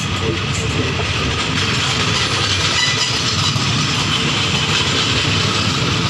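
Passenger coaches of a train rolling past close by: a steady, loud rumble of steel wheels on the rails with clattering over the track.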